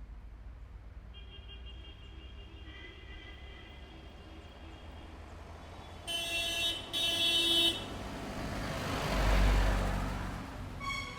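Road traffic with vehicle horns: a distant horn held for several seconds, then two loud close horn blasts about six seconds in. A vehicle then passes close, its low engine rumble and road noise swelling and fading, and another horn starts near the end.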